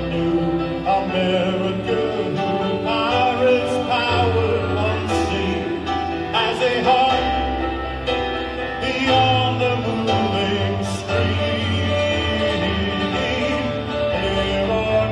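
Live band music: a man singing over strummed acoustic guitar and drums.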